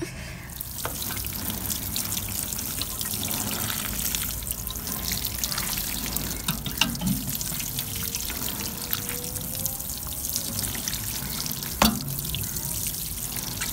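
Water sprinkling from a watering can's rose onto potting soil in a plastic tote, a steady hiss of falling water. It is broken by a few sharp knocks, the loudest near the end.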